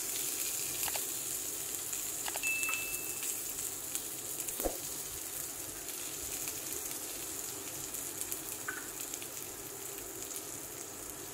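Boiled potatoes with a tempering of mustard seeds, cumin, curry leaves and green chillies sizzling steadily in oil in a non-stick frying pan on low heat. A few light clicks, a short high beep about two and a half seconds in, and one knock just under five seconds in.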